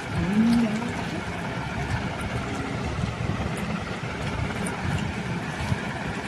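Steady low rumbling background noise, with a brief voice-like hum about half a second in.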